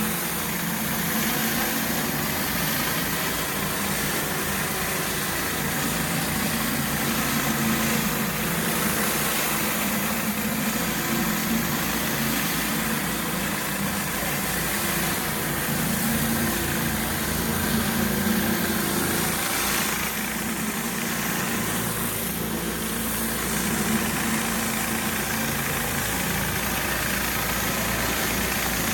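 Pressure washer's gas engine running steadily, with a steady hiss over it.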